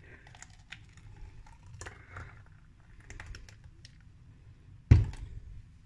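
Thick smoothie pouring from a glass jug into a plastic tumbler, with irregular small clicks, ticks and splatters. A single loud knock about five seconds in as the glass jug is set down on the table.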